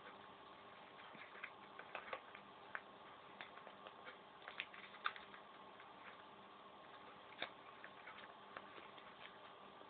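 Faint, irregular crinkles and taps of a sheet of paper being folded and creased into a paper football, over a faint steady hum.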